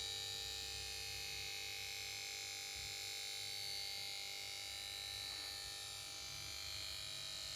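Power board of a Samsung PS42A410C1XBT plasma TV making a steady electronic whine of several tones over a hiss. It is the noise the set makes when it fails to start after being switched on.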